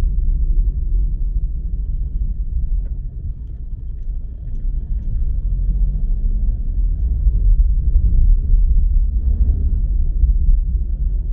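Steady low rumble of a car in motion, road and engine noise with no speech.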